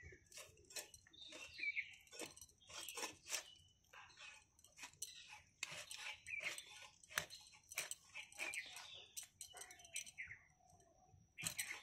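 Bhetki (barramundi) pieces being cut on a boti: the blade crunching and scraping through scales and bone in irregular short strokes.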